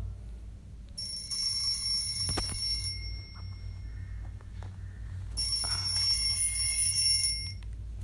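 A ringer sounding in two bursts of about two seconds each, roughly two and a half seconds apart, with a single sharp click between them.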